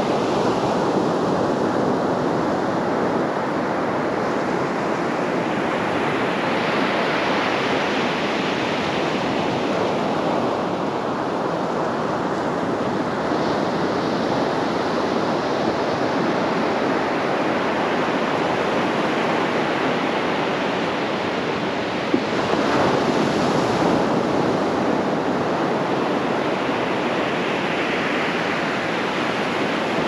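Ocean surf on a sandy beach: a continuous wash of breaking waves and water running up the sand, swelling and easing. One wave breaks with a sudden surge about two-thirds of the way through.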